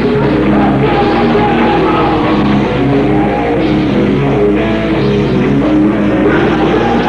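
Loud rock music from a band playing steadily, with singing.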